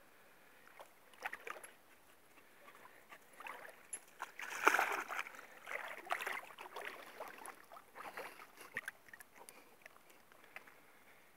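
A dog wading into shallow lake water, its legs splashing and sloshing in irregular bursts, loudest a little under halfway through as it enters the water.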